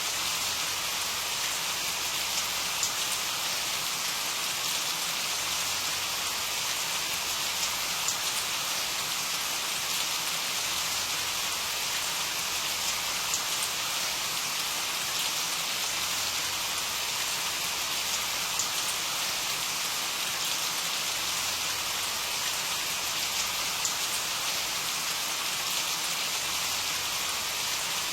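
Steady rain falling, a constant hiss with scattered individual drops ticking on a surface.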